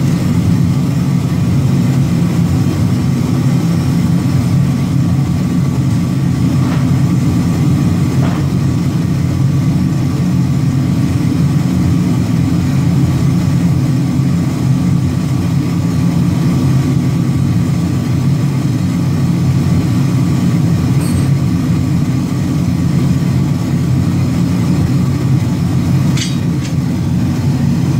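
Heavy forge-shop machinery running steadily with a low, unchanging drone, with a few faint clicks about a third of the way in and again near the end.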